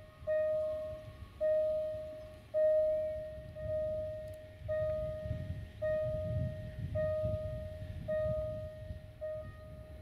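A single ringing chime struck over and over, about once a second, each stroke fading before the next, over a low rumble.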